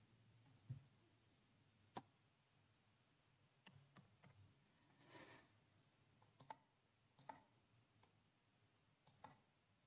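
Near silence with faint, scattered clicks of a computer mouse and keyboard, about a dozen spread irregularly.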